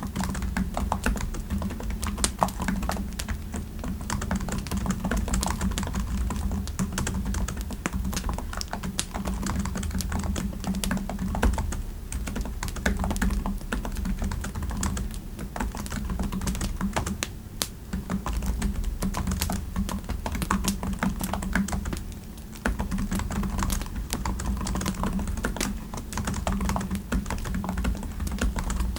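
Steady typing on a computer keyboard: a dense, irregular run of keystroke clicks, over a steady low rumble.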